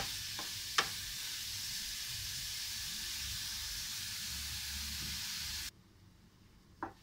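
Grated carrots sizzling steadily as they fry in ghee in a nonstick pan, with two sharp knocks of a wooden spatula against the pan in the first second. The sizzle cuts off suddenly near the end, leaving only a faint single knock.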